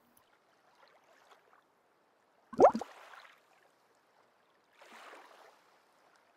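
A single small plop into water with a quick rising pitch about two and a half seconds in, the sound of a cast fishing line's bobber landing, trailing off in a short hiss. A fainter splashy rustle follows about five seconds in.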